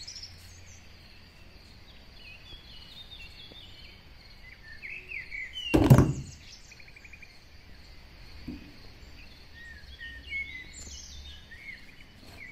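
Birds chirping and twittering faintly in the background, with one loud thump about six seconds in as a plastic toy figure lands in a cardboard box.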